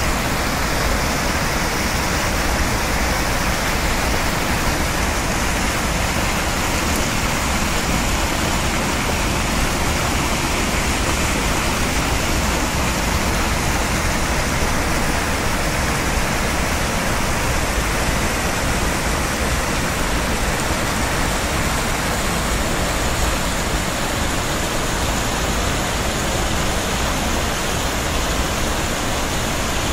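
Floodwater pouring over a concrete weir into churning white water: a loud, steady rush of falling water.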